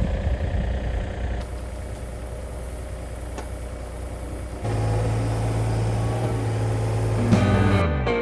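Yanmar ViO35-6A mini excavator's diesel engine running while digging. A little past halfway it steps up to a louder, steady drone, and near the end its pitch falls away.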